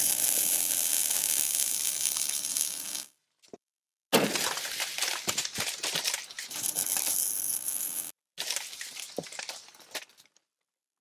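Sound effects for an animated logo intro: a steady noisy hiss for about three seconds, then after a short gap a sudden hit and several seconds of dense clattering noise that cuts off abruptly. A shorter fading tail follows.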